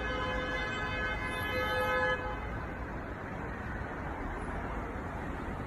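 Car horns sounding in one long held blast that stops about two seconds in, leaving the steady noise of street traffic.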